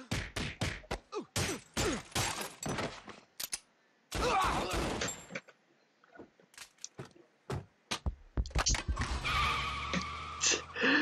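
Cartoon sound effects: a scuffle of quick hits and scratches, then glass cracking about four seconds in, and near the end a car running and crashing as it rolls over.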